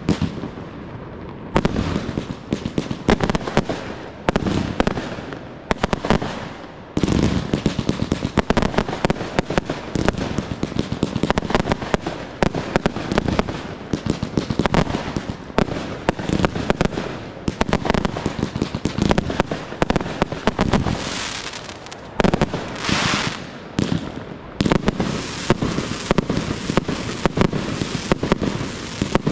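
Aerial fireworks display: dense, rapid bangs of shells and cakes launching and bursting, with a few short lulls. A brief stretch of hissing comes about three-quarters of the way through.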